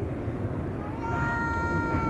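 A cat meowing: one long, steady call starting about a second in, over a low rumbling background.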